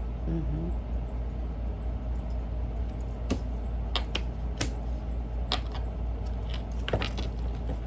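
About half a dozen light, sharp clicks and taps scattered through the middle, over a steady low hum.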